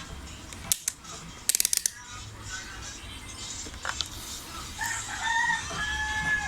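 A rooster crowing: one drawn-out, pitched call starting near the end. A few sharp clicks come earlier, in the first two seconds.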